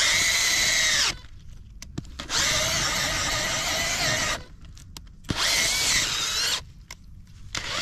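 Power drill boring into the trunk of a tree being treated for red palm weevil. It runs in repeated bursts of one to two seconds, with its pitch bending as each burst starts and stops.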